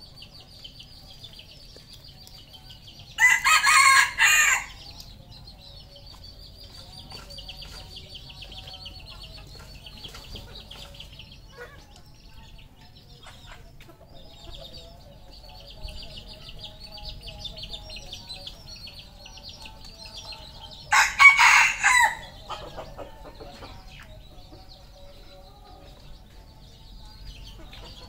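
Red junglefowl rooster crowing twice, a few seconds in and again about 18 seconds later, each crow short at a little over a second. Under the crows runs a steady high-pitched chirring.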